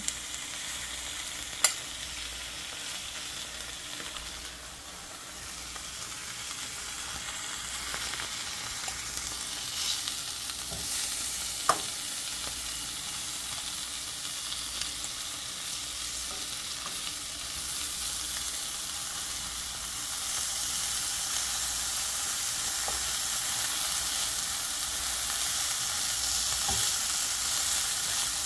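Cubes of cheese sizzling as they fry in a pan, with two sharp clicks of a fork against the pan as pieces are turned. The sizzle grows a little louder about two-thirds of the way through.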